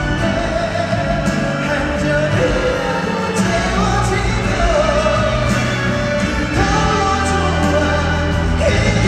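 A male vocalist singing a Korean ballad live into a hand-held microphone over backing music with a steady bass line.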